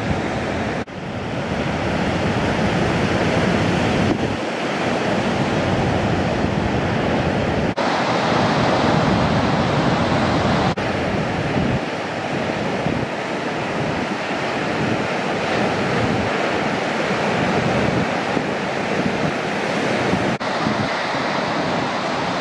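Ocean surf breaking and rushing steadily, with wind buffeting the microphone. The sound jumps abruptly several times where shots are cut together.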